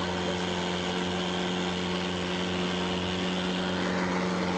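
Long-tail boat's engine running at a steady speed: a constant drone with an even hiss over it.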